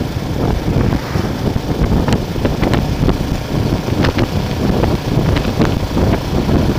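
Wind buffeting the microphone: an uneven, gusty low rumble with a few faint ticks over it.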